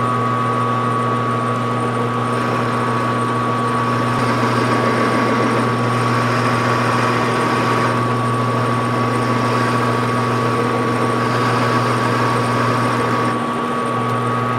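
Metal lathe running under power with the chuck spinning while a V-shaped tool cuts a thread relief groove into the bar: a steady motor hum with a constant high whine and cutting noise over it. The cutting noise eases off a little before the end.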